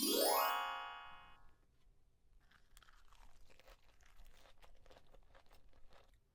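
A short rising electronic tone that sweeps up and holds briefly, then fades, followed by close-miked chewing with small crunchy clicks of someone eating.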